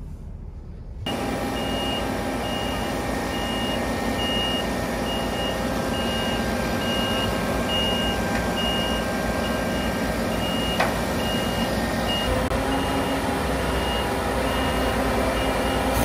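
Claas Lexion combine harvester's reversing alarm beeping a little more than once a second over its diesel engine running, as the combine backs down off a low-loader trailer.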